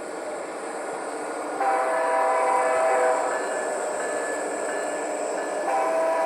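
HO scale model diesel locomotive's DCC sound decoder blowing its horn through a small onboard speaker, one long blast and a second starting near the end, over the steady running sound of the model train growing louder as it approaches.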